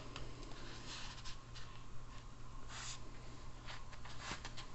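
Faint scratchy rustles and light handling scrapes, a few short swishes spaced irregularly, over a steady low electrical hum.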